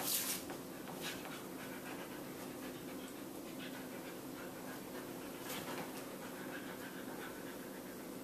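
Dog panting a little and steadily, winded from a game of ball. There are a few short clicks or rustles near the start and again about five seconds in.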